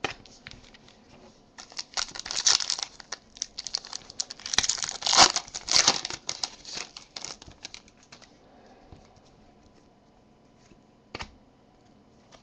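Trading card pack wrapper being torn open and crinkled by hand, in two spells of crackling. A single sharp click comes near the end.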